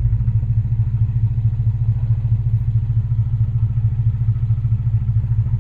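2003 Infiniti G35's 3.5-litre V6 idling with a steady low pulsing note. The car is being diagnosed for a misfire and rough idle.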